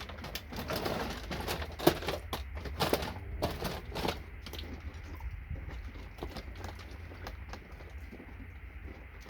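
Small plastic and metal parts clicking and rattling as they are handled, dense for about the first four seconds and then dying away to a faint background with a steady low hum.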